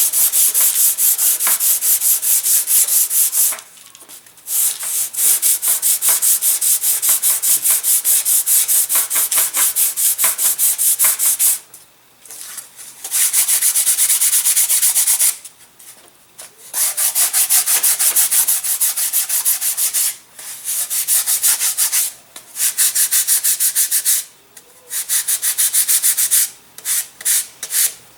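Sandpaper being rubbed by hand over a model airplane wing, smoothing it after shaping: rapid, even back-and-forth strokes, with several short pauses.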